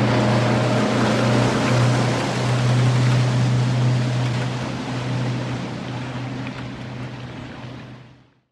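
Motor yacht's engine droning low and steady under the rush of churning water from its wake, slowly fading as the boat pulls away, then cutting off to silence just before the end.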